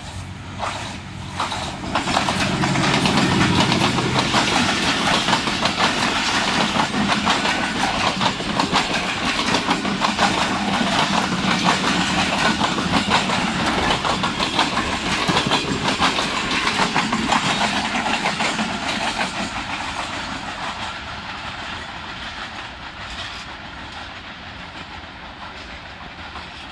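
Diesel-hauled passenger train running through a station at speed: the locomotive's engine is heard as it passes in the first few seconds, then a long run of coaches' wheels clicking over rail joints, fading as the train moves away in the last several seconds.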